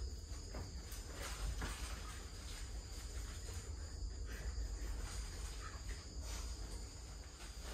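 Steady night chorus of crickets, a thin high trill running throughout, over a low steady hum.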